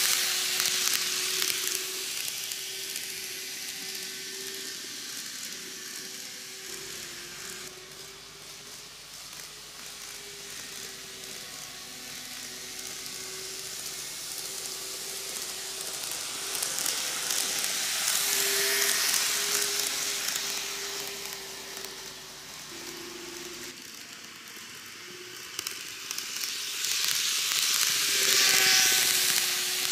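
KATO N-gauge model train (JR Shikoku N2000 series diesel railcar set) running on TOMIX track: the motor's steady whine under a hissing rattle of wheels on rail. The sound swells each time the train passes close, at the start, about two-thirds in and near the end.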